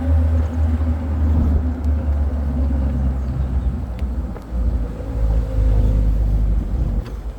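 Low, steady rumble of a moving vehicle's engine and road noise, dipping briefly about four and a half seconds in.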